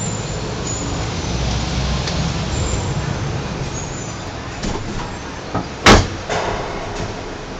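Cable car gondola moving through the station, heard from inside the cabin: a steady low rumble with a few knocks, and one sharp, loud clunk about six seconds in.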